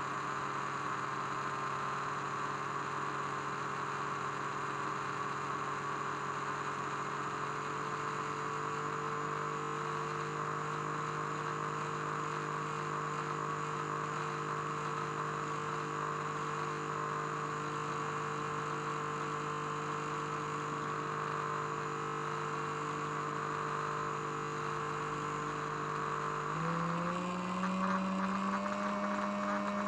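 Two small mirror-mounted speakers humming steadily as a function generator drives them with low test tones, over a steady hiss. About 26 seconds in, the hum rises in pitch in a couple of small steps as one speaker's frequency is turned up.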